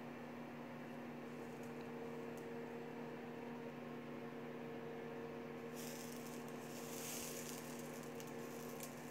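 Faint steady electrical hum, with a soft hiss for about two seconds starting around six seconds in and a few faint clicks.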